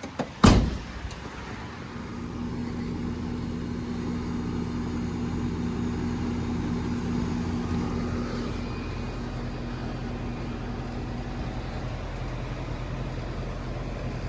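A sharp clunk about half a second in, then an R-22 air-conditioner condensing unit starts and runs, its compressor and condenser fan making a steady hum.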